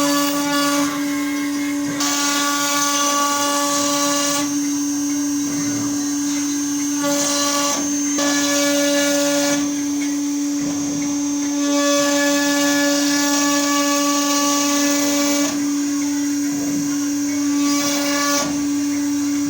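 Wood router spindle running with a steady high whine while its bit carves into a wooden door. The cutting noise swells and drops back every few seconds as the bit moves in and out of the wood.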